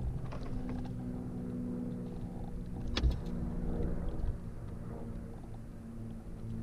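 Steady low hum of a boat motor, with a single sharp knock about three seconds in.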